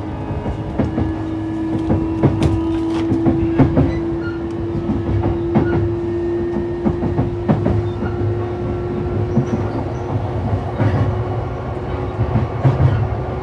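JR East E233-3000 series electric train running, heard aboard. A steady traction-motor whine rises slightly in pitch over the first several seconds and then holds, over wheel and rail rumble with irregular clicks and clacks from the track.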